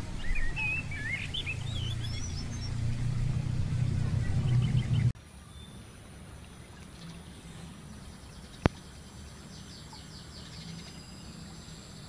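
Outdoor ambience: a bird chirping over a low rumble, cutting off abruptly about five seconds in to a quieter background with a steady high-pitched whine and faint rapid insect trills, and a single sharp click partway through.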